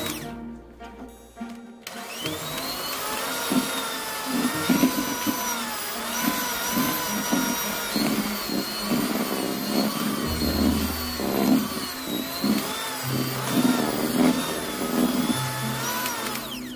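Electric hand mixer running, its twin beaters churning thick butter-and-sugar dough in a metal bowl, with background music playing along. The motor sound drops out briefly near the start and picks up again about two seconds in.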